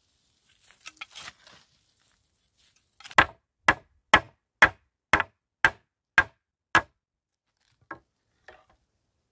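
A run of eight sharp hammer blows, about two a second, on a joint of a frame of rough wooden poles, followed by two lighter taps. Before them, faint scraping of dry soil being dug by hand.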